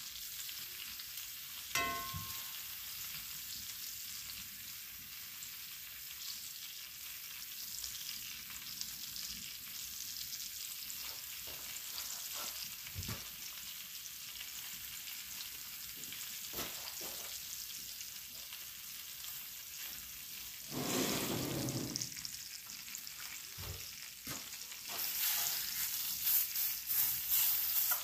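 Steaks frying in a cast iron skillet on a wood cook stove, a steady sizzling hiss. A metal clink of tongs against the skillet comes about two seconds in. The sizzle swells about two-thirds of the way through and crackles louder near the end.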